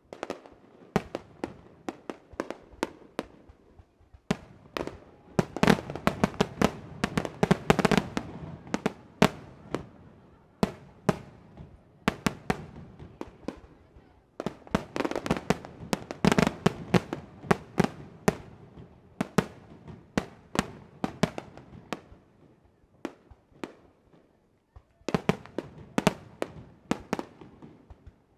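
Aerial fireworks display bursting in rapid strings of sharp bangs and crackles. The bursts come in dense volleys about a fifth of the way in, again just past the middle, and once more near the end, with sparser pops between.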